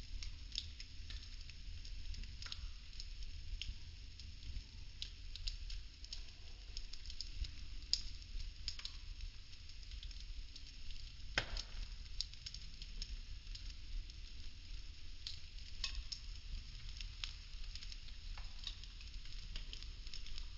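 Burning wooden popsicle sticks crackling, with a steady hiss and frequent sharp pops, the loudest about halfway through, over a steady low rumble.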